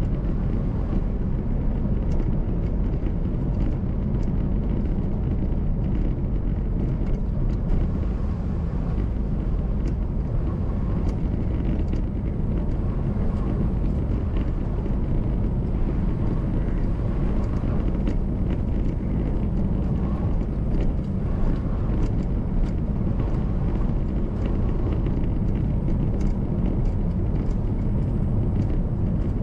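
Car driving along a road: a steady low rumble of engine and tyre noise, with faint scattered ticks.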